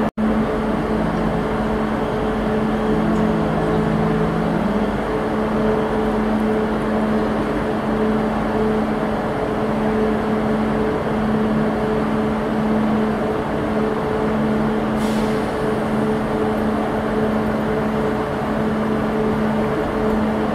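Renfe multiple-unit passenger train moving slowly along a station platform: a steady mechanical drone with two held tones, one low and one higher, over a low hum.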